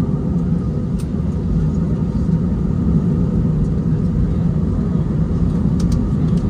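Steady low rumble inside the passenger cabin of an Airbus A319 taxiing after landing: idling jet engines and airframe noise, with a couple of faint light ticks.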